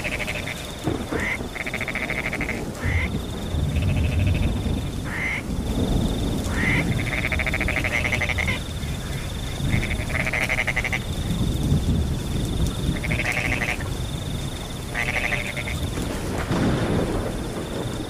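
A chorus of frogs giving repeated pulsed croaking calls, each half a second to a second long, over a steady high-pitched cricket trill that breaks off and resumes several times. A low rumble runs underneath.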